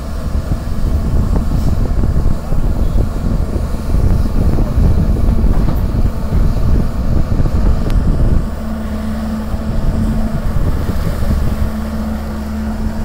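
Tata Hitachi long-reach excavator's diesel engine running as the hydraulic boom lowers the bucket, with a heavy rumble. About eight and a half seconds in it settles to a steadier, quieter hum with a steady tone.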